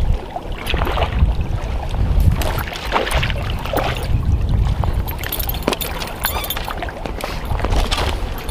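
Wind buffeting the microphone in a low, uneven rumble, with a sharp click right at the start and scattered short clicks and hisses.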